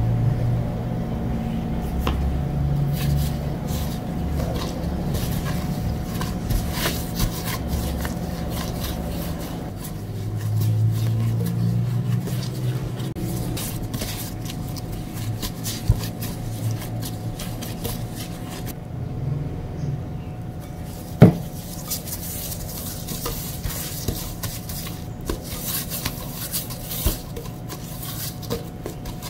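Silicone spatula stirring and scraping bread dough around a glass mixing bowl, then gloved hands working and pressing the dough in the bowl, with many small clicks and scrapes. One sharp knock about two-thirds of the way through is the loudest sound.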